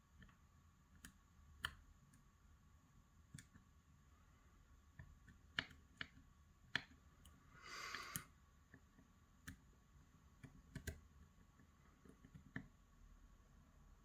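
Faint, irregular small metallic clicks and taps from a lock pick working the tiny pins of a Kaba Micro dimple lock held under tension, with a brief rustle about eight seconds in.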